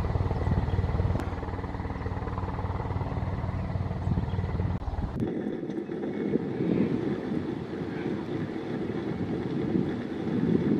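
A steady low engine drone with a pulsing hum cuts off abruptly about five seconds in. A rough, rushing noise without the low hum follows.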